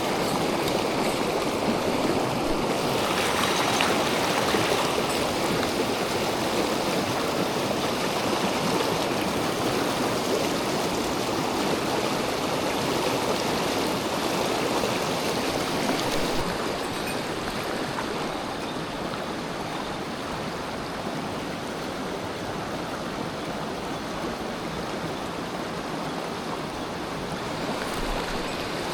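Mountain stream water rushing steadily over rocks, a little quieter and duller from about halfway through.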